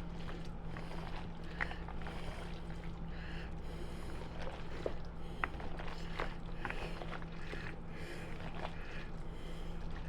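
Hands squishing and mixing mayonnaise-dressed chicken salad in a bowl: soft, irregular wet squelches with small clicks, over a steady low hum.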